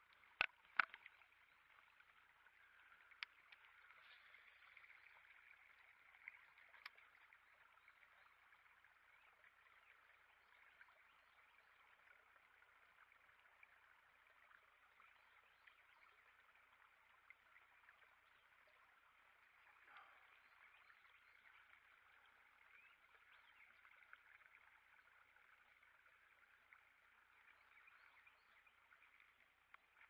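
Faint, steady rush of a shallow creek running over rocks, with a few sharp clicks in the first second.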